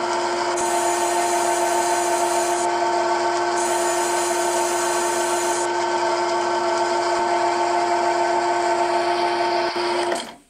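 Simulated CNC lathe sound from a lathe simulator app: a steady machine whine with a high hiss that comes and goes as the tool cuts. It cuts off about ten seconds in, as the program stops the spindle.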